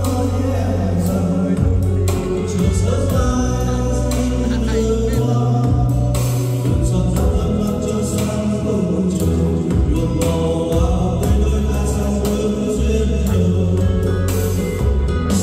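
A song with singing over a strong, deep bass line that changes note every second or two.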